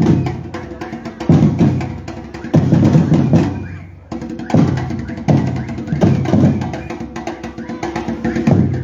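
Batucada drum group playing a driving street rhythm: deep bass drums pounding, with rapid sharp strokes from smaller drums in between.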